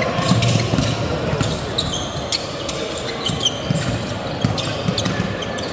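Basketball dribbled and bouncing on a hardwood gym floor, making irregular sharp knocks, with short high squeaks of sneakers on the court. Crowd chatter echoes in the large hall.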